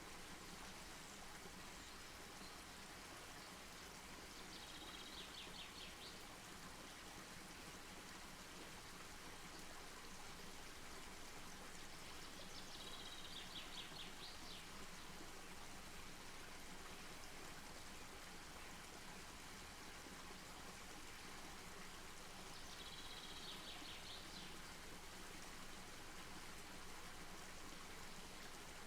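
Faint, steady outdoor hiss, with a small bird's short chirping trill three times: about five seconds in, near the middle and near the end.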